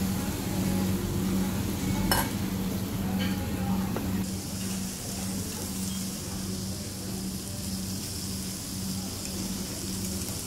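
Slices of beef sizzling on a tabletop Korean barbecue grill over a steady low hum, with a sharp click of metal tongs on the grill about two seconds in and a fainter one a second later.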